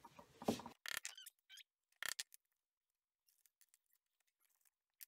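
Handling noises as button snap parts are fitted into the stitched sanitizer holder: a few short, sharp clicks and rustles in the first two seconds, then faint scattered ticks.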